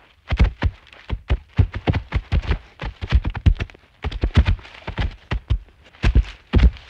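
A rapid, irregular series of sharp knocks and thuds, several a second.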